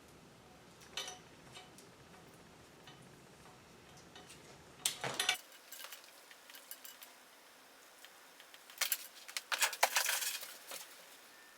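Scattered light metallic clinks and clicks of tools and small parts being handled during wiring work, with a louder clatter about five seconds in and a quick run of clinks near the end.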